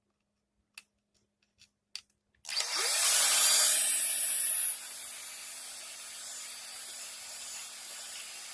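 A small electric power tool motor starts about two and a half seconds in with a rising whine. It runs loud and hissy for about two seconds, then runs steadily more quietly until it cuts off near the end, after a few faint clicks at the start.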